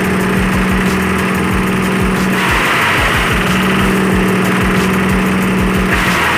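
Kubota 12.5 hp single-cylinder diesel engine running steadily under load, driving a forage chopper, with a steady hum and even engine thuds. A louder rushing noise from the chopper swells about two and a half seconds in and again near the end, as corn stalks go through.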